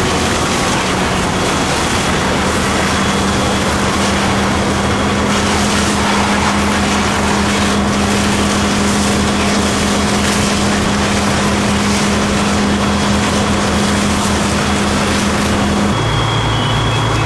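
Fire engine's pump engine running steadily at high revs while it feeds the hose lines, a constant drone under a steady rushing hiss; the drone drops to a lower pitch near the end.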